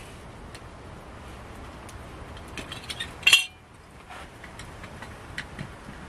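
Metal camp cookware clinking once, sharply, about three seconds in, with a brief ring; a few small clicks and crackles from the wood fire in a folding twig stove come before and after.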